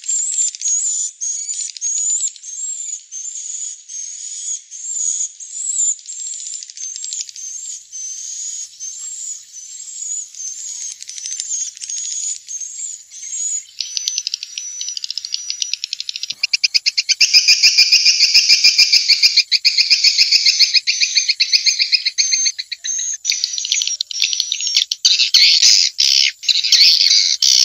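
Swiftlets twittering: a steady run of short, high chirps, which about halfway turns into a fast, buzzy trill and then rapid clicking chirps near the end. This is a swiftlet call recording of the kind played to lure swiftlets into nesting houses.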